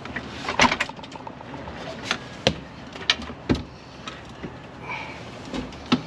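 About half a dozen irregular knocks and clunks, the loudest about half a second in, from handling a truck seat and its mounting hardware while it goes back into the cab.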